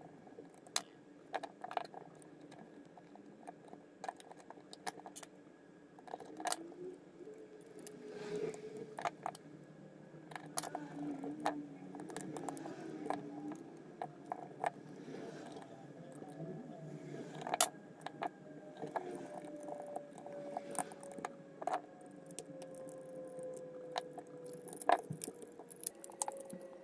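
Irregular small clicks and taps of the plastic shell and circuit-board parts of a Microsoft Wireless Mobile Mouse 3500 being handled and fitted back together, with a micro screwdriver working the parts.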